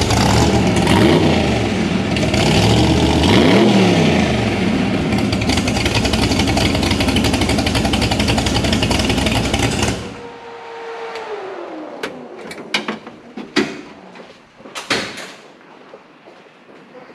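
Loud car engine running and revving, cut off abruptly about ten seconds in. After it, a faint falling whine and a few clicks and knocks.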